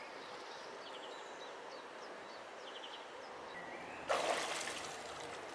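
Small birds chirping over quiet garden ambience; about four seconds in, water splashes and sloshes in a portable cold-plunge tub as a man ducks his head under, fading over the next second.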